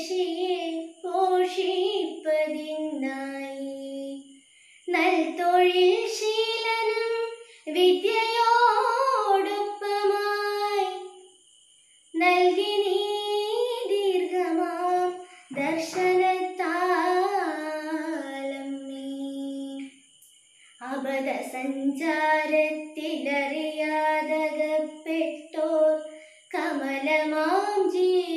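A female voice singing a Malayalam song with no accompaniment, in phrases a few seconds long that hold and slide between notes, with short breaths between them.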